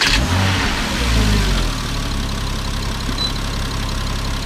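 Porsche Cayman 987's flat-six engine just after starting, running at raised revs for about the first second and a half, then settling to a steady idle.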